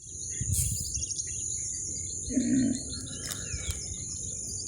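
Insects, crickets by their steady high shrill, with birds chirping now and then over a low rumble. About two and a half seconds in comes one brief, louder low-pitched sound.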